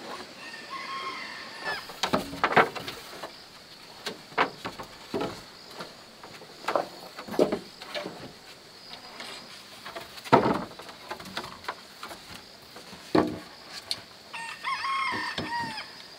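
A rooster crows twice, once about half a second in and again near the end, amid scattered sharp knocks and clatters of bamboo poles being handled and set on a bamboo coop frame.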